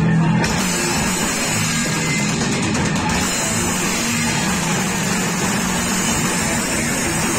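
Rock band playing live: distorted electric guitars, bass and drums blending into one dense, steady wall of sound.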